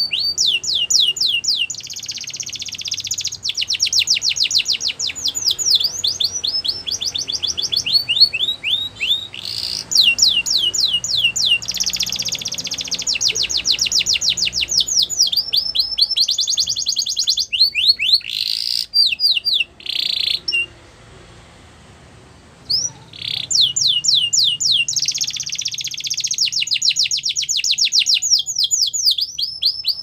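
Domestic canary singing: long, fast trills of rapidly repeated high notes, switching from one trill to the next every second or two, with a short pause about two thirds of the way through.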